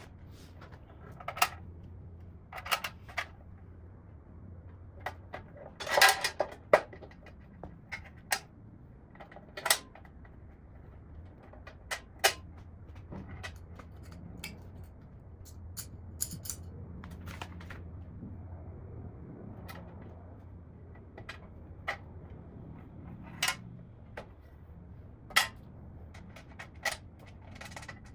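Scattered clicks and clunks of steel tool-cart panels, braces and bolts being handled and fitted together by hand, with a low steady hum underneath. The loudest run of knocks comes about six seconds in.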